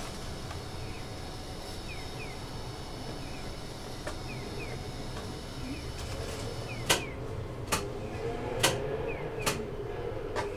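A tram standing at a signal, its equipment humming steadily in the cab, while a pedestrian crossing's signal gives faint paired chirps every second or two. About seven seconds in, sharp clicks begin, roughly one a second, over a wavering tone.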